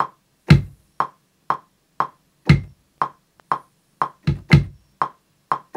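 Maschine software metronome clicking twice a second, with a kick drum sample triggered from the keyboard over it: single kicks at about half a second and two and a half seconds, then a quick double kick a little past four seconds, as a basic kick pattern is recorded.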